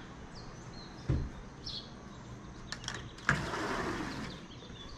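Small birds chirping outdoors, a few short high chirps, with a low thump about a second in and a rush of noise lasting about a second from about three seconds in.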